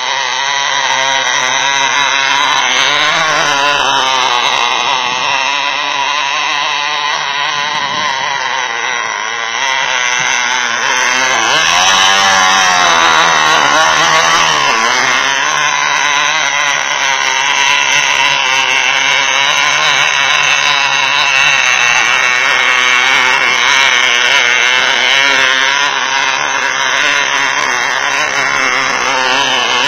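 Cox .049 glow-plug two-stroke model engine in a toy dune buggy, running continuously with its pitch wavering up and down, and a swoop down and back up in pitch about twelve seconds in.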